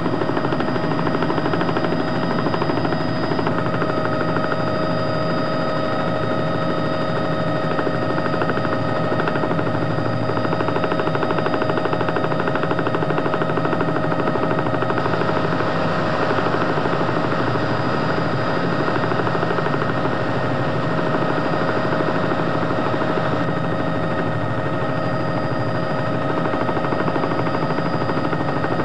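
Helicopter heard from inside the cabin: the rapid, even chop of the rotor blades under a steady whine, running at a constant level throughout.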